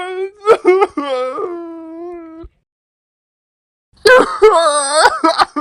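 Cartoon crying sound effects: a voice wails and sobs in a wavering pitch and stops about halfway through. After a second and a half of silence, another, louder crying clip starts.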